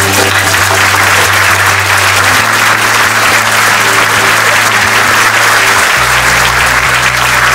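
Audience applauding over music, with a steady bass line that shifts to a new note twice.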